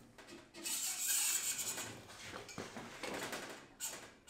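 Go-kart axle, a metal tube, sliding through a bearing carrier on the chassis: metal scraping and rubbing on metal. It is loudest for about a second near the start, then turns to fainter scraping with a few light knocks.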